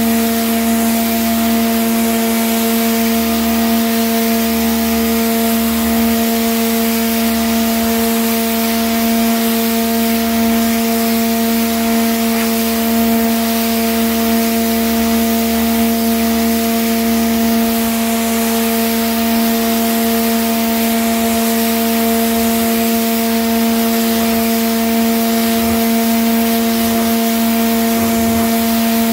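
Pressure washer running steadily: a constant motor-and-pump hum with the hiss of the high-pressure water jet blasting black algae off a concrete floor.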